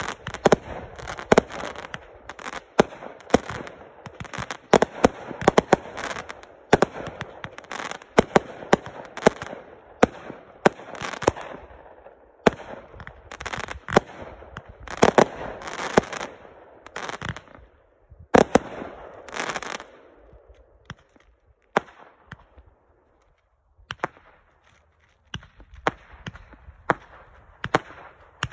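200-gram consumer multi-shot firework cakes firing in rapid succession: launch thumps, shell bursts and crackle. The shots thin out about twenty seconds in, with a brief lull, then single shots pick up again near the end.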